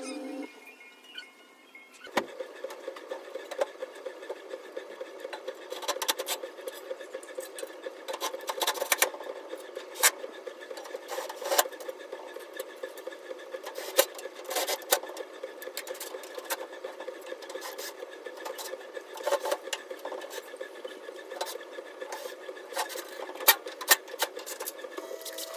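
Electric arc welding: a steady crackling buzz with frequent irregular sharp pops, starting about two seconds in after a short quieter stretch.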